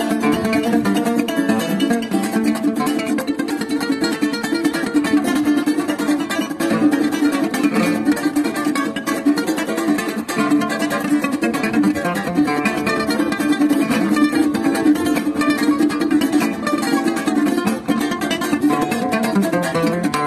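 Bandola llanera playing música llanera, with a continuous run of picked notes and no break, joined by a second plucked string instrument.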